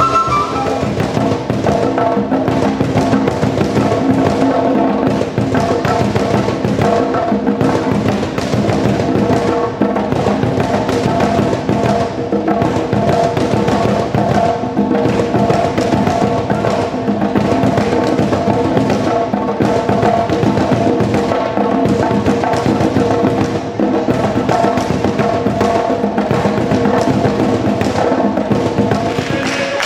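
Ensemble of hand drums (djembe, a tall wooden drum and a conga-style drum) played together in a dense, continuous rhythm.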